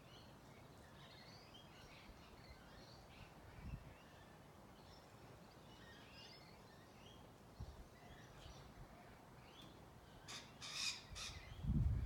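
Faint garden ambience with distant small birds chirping now and then. There are a few low bumps, and a short run of sharper, louder sounds about ten seconds in.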